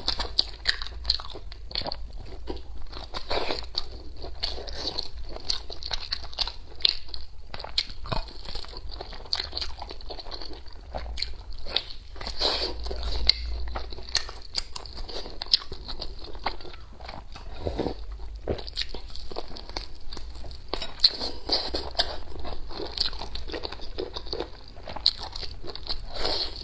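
A person eating close to the microphone: chewing and biting food, with many small crisp, crunchy clicks at an irregular pace.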